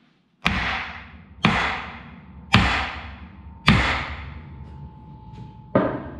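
Sledgehammer blows on the steel steering knuckle of a John Deere 6400's front axle, five heavy strikes about a second apart, each ringing out. The knuckle cap being struck is stuck fast and won't come loose. A steady metallic ring hangs on after the fourth blow.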